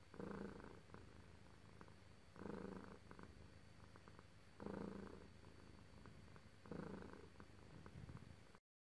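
Relaxed domestic cat purring, a quiet steady rumble that swells about every two seconds, four times. The purring stops suddenly near the end.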